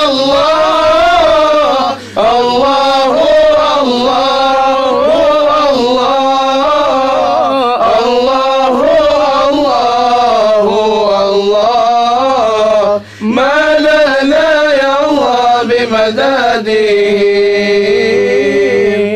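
A man's solo voice singing an Arabic devotional chant in long, winding melodic runs. He breaks briefly for breath about two seconds in and again about thirteen seconds in, and holds one long steady note near the end.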